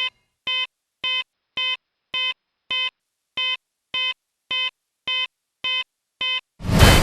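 Alarm clock beeping: short, evenly spaced beeps, about two a second, with silence between them. Near the end a sudden loud blast cuts in over them.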